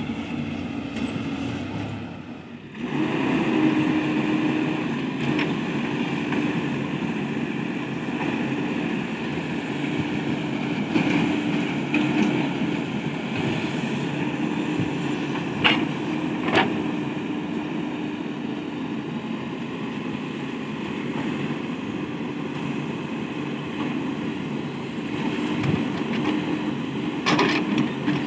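Diesel engine of a backhoe loader working beside a tractor, running steadily under load while it digs and loads mud. A few sharp knocks stand out about halfway through and near the end.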